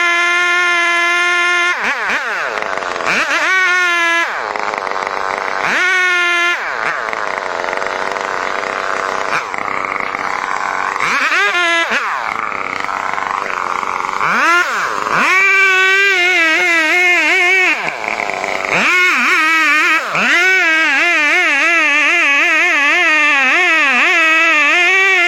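Chainsaw running at high revs while cutting. Its pitch drops sharply and climbs back again several times as the chain bogs in the wood, and later it wavers rapidly under load.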